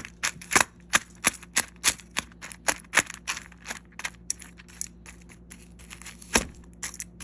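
A utensil clicking and knocking against a bowl as wet dog food is stirred into dry kibble, in quick irregular strokes, about three or four a second, that thin out later, with one heavier knock near the end.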